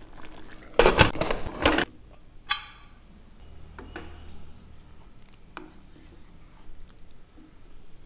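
A spatula scraping and stirring thick tomato gravy in a stainless steel pressure cooker. A loud burst of scraping comes about a second in, a sharp metallic clink follows about a second later, and softer scrapes and taps come after.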